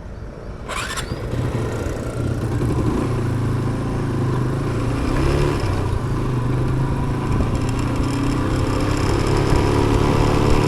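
Motorcycle engine running while riding, its pitch shifting up and down, with wind and road noise over it, picked up by a helmet-mounted action camera's built-in mic. The sound grows louder over the first couple of seconds.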